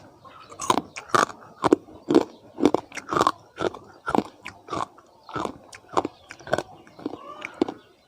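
Someone biting and chewing crunchy food close to the microphone, with crisp crunches about twice a second.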